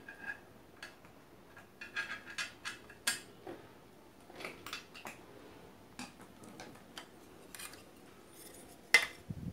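Irregular small metallic clicks and clinks as a CRT TV's neck board and its sheet-metal shield are worked loose by hand, the sharpest click near the end.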